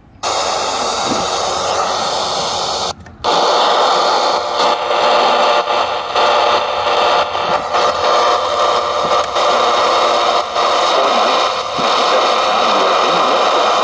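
Retekess TR604 AM/FM portable radio's speaker giving a steady hiss of AM static, with faint crackles, while it is tuned at the bottom of the AM dial. The hiss drops out for a moment about three seconds in.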